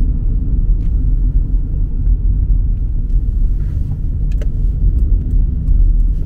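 A car driving, with steady low road and engine rumble heard from inside the car.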